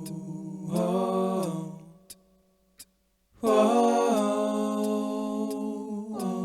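Wordless a cappella singing: a voice holds long 'oh' notes in two phrases, stepping between pitches. There is a pause of about a second and a half in the middle.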